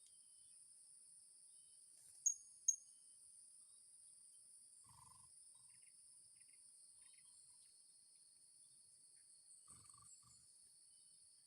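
Steady high-pitched drone of insects such as crickets, with two sharp high chirps from a small bird close together about two seconds in, and a few faint soft knocks later on.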